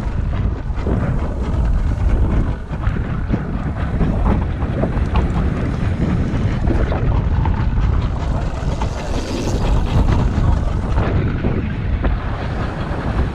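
Steady wind buffeting the microphone on a small boat out on open water, with water splashing around the hull.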